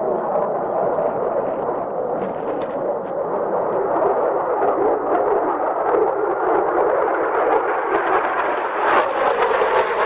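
Jet engine noise from an F-16 Block 52+ flying a display pass: a loud, steady rushing that turns brighter and hissier about nine seconds in as the jet comes closer.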